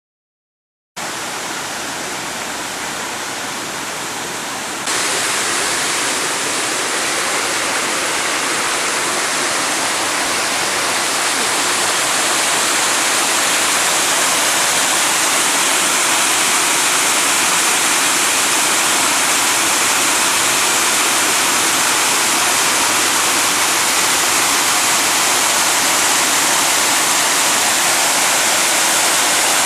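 Creek water rushing steadily. It starts about a second in and gets louder suddenly around five seconds in.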